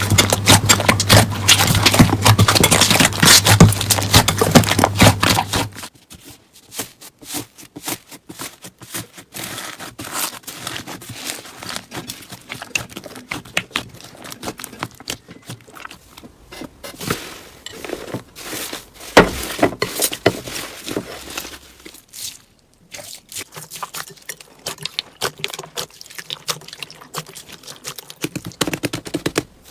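Slime being squeezed, pressed and stretched by hand, crackling and popping. It is loud and dense for about the first six seconds, then drops suddenly to quieter, scattered clicks and squelches.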